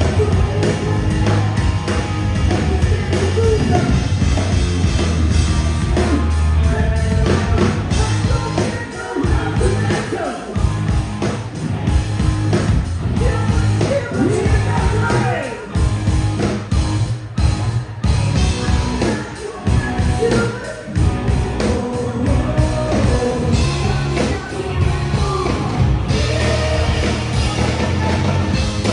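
Rock band playing live: drum kit, electric guitars and bass guitar, with a voice that may be singing over them.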